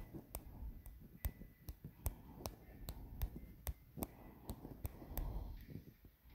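Sharp, light taps on a phone's touchscreen, about two a second at an uneven pace, with faint handling rumble from the phone.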